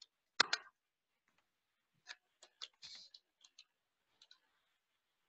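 Computer keyboard keys clicking: a pair of sharper presses about half a second in, then a few light, scattered taps.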